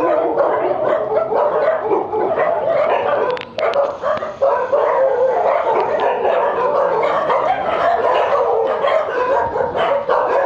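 A large pack of shelter dogs, mostly Thai breed, barking together from their kennels in a continuous, loud, overlapping chorus, with a brief lull about three and a half seconds in.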